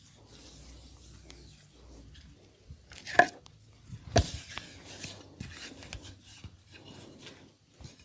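Hands massaging bare skin: a soft rub, then two sharp cracks about a second apart, the first the loudest, followed by a run of lighter, quicker strikes.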